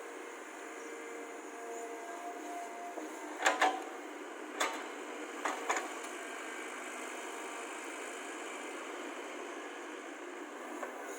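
Excavator working, its engine running steadily, with a few sharp knocks about three and a half, four and a half and five and a half seconds in, the first the loudest.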